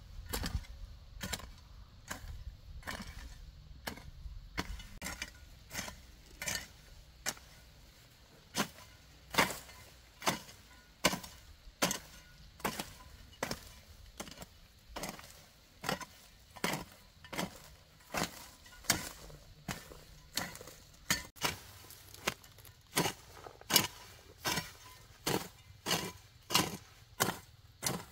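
Hoe blade chopping into weedy soil in a steady run of strikes, about three every two seconds.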